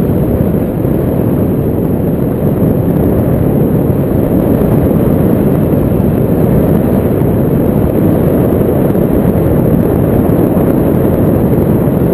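Wind rushing over the microphone of a paraglider in flight: a loud, steady, low rumble with no pitched tone in it.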